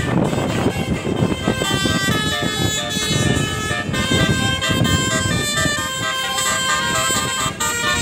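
A bus's basuri telolet horn playing a tune of quick stepped notes, several tones sounding together, over the rumble of the bus's engine and road noise.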